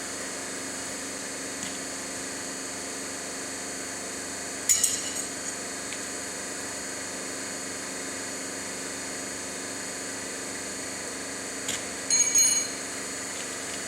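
Ringing metal-on-metal clinks in a blacksmith's shop over a steady hum: one sharp strike about five seconds in, then a quick cluster of clinks near the end.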